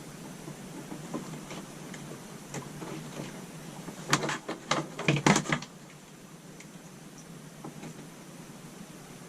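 Small clicks and light rustling of hands working electrical wire and plastic lever-nut connectors, with a burst of sharp plastic clacks about four seconds in that lasts under two seconds.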